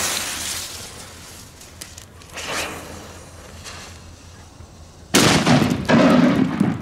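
Firecracker fuse catching with a hiss of sparks, then about five seconds later the thrown firecracker goes off with a sudden loud bang followed by a long rolling echo.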